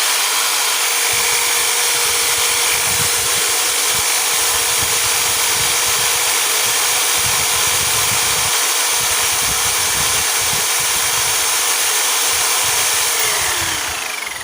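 Cheap electric hand drill with a freshly rewound motor running steadily at full speed on a soak test, with a steady whine over a loud hiss. About 13 seconds in it is switched off and the whine falls as the motor spins down.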